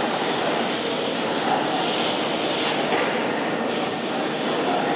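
Steady, even rushing noise inside a road tunnel, with no clear rhythm.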